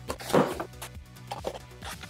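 Background music, over which a small cardboard shipping box is handled: a string of knocks and scuffs as the box is tipped and its flaps pulled open, the loudest knock about half a second in.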